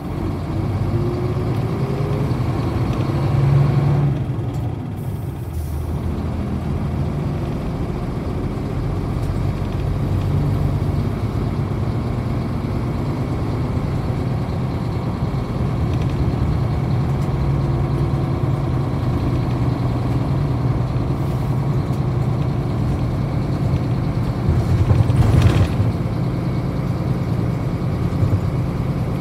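1998 Hino Blue Ribbon KC-HU3KMCA city bus heard from on board while under way. Its high-output diesel engine pulls with the pitch rising and stepping as it changes gear on the pneumatic FF (finger-control) shift. A short, loud hiss of air comes near the end.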